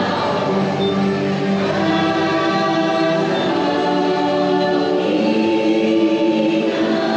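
The dark ride's soundtrack through the attraction speakers: a wordless choir with music beneath it, singing long, layered notes that move to a new chord every few seconds.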